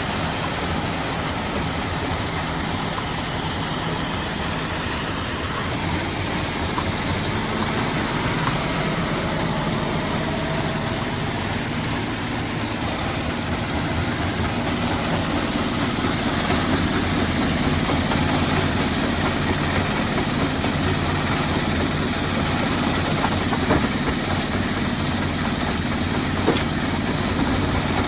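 Heavy machinery running steadily: an engine's low, even hum under a constant clattering noise, slightly louder from about halfway, with a couple of faint knocks near the end.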